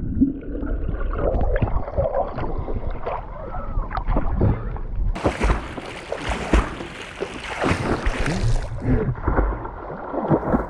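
Water splashing and sloshing around stand-up paddleboards on a lake, with irregular short splashes over an uneven low rumble.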